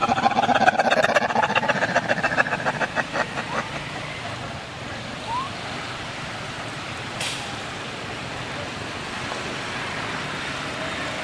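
A motor vehicle's engine pulsing rapidly nearby, about eight beats a second, fading away about three to four seconds in. It leaves a steady background of traffic noise, with one short hissy click near the middle.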